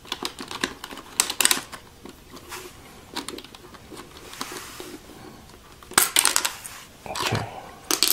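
Sharp plastic clicks and clatter of keycaps being pried off a membrane keyboard with a key puller and handled. A few clicks come about a second in, a quick run of clicks about six seconds in, and more near the end.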